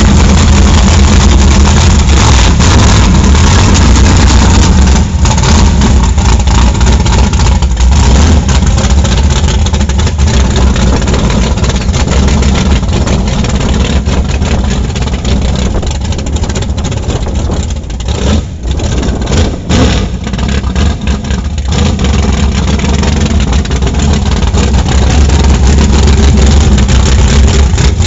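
A mud-bog truck's exposed V8 with open tube headers running loud as the truck creeps across the grass. The sound dips for a few seconds midway, then swells again near the end.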